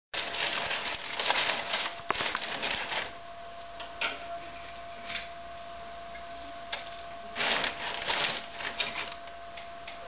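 Crumpled newspaper crinkling and rustling as logs are laid on it in a fireplace, in irregular bursts: a long one over the first three seconds, brief ones around four and five seconds, and another about seven and a half seconds in. A faint steady high tone runs underneath.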